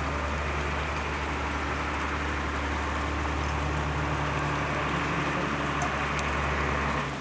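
Steady rush of spring water pouring from a metal pipe into a shallow pool, over a steady low hum.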